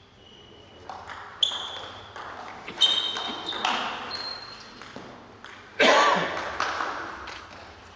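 Table tennis rally: the ball clicks off rackets and table in a quick run of hits, several with a short ringing ping. About six seconds in comes a loud, short shout from a player.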